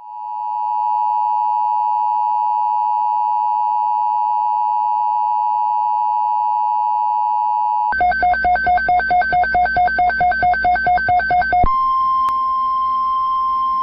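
Emergency alert tones. A steady dual-tone attention signal holds for about eight seconds, then rapid pulsing beeps run for a few seconds, then a single steady alert tone comes in just before a weather alert message is read.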